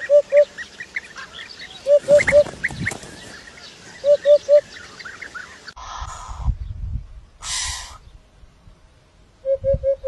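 Birds calling: one bird gives groups of three short, low, honking calls about every two seconds, over a scatter of quick high chirps from smaller birds. In the second half there are bursts of rustling noise.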